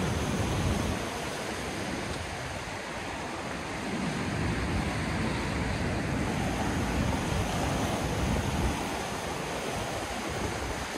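Rushing whitewater in a man-made rapids channel, a steady hiss, with wind buffeting the microphone.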